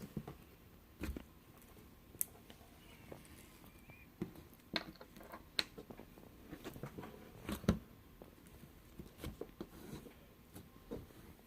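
Slime with beads in it being handled: faint, scattered sticky clicks and small crackles.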